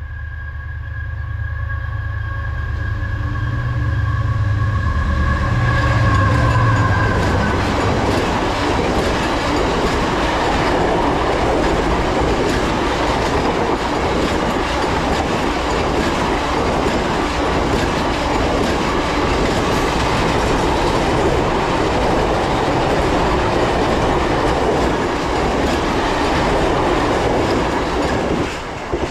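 Diesel-hauled freight train of tank wagons passing close by: a deep locomotive engine rumble with a steady high whine in the first several seconds, then the dense rolling noise of the wagons' wheels on the rails, dropping off sharply near the end as the last wagon goes by.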